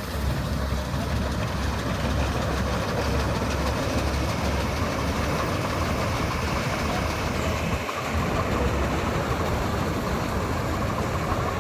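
Combine harvester engine and threshing machinery running steadily while harvesting, with a brief dip in the low rumble about eight seconds in.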